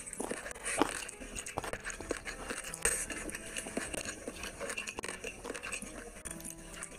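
Close-up eating sounds: chewing and wet mouth smacks as rice and curry are eaten by hand, with fingers mixing rice against a ceramic plate. A quick run of small clicks and smacks; the loudest comes a little under a second in and another near three seconds in.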